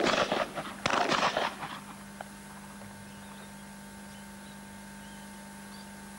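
Shotgun fire: the tail of one blast, then a second shot a little under a second in, each loud and ringing out. It is followed by a steady low tape hum.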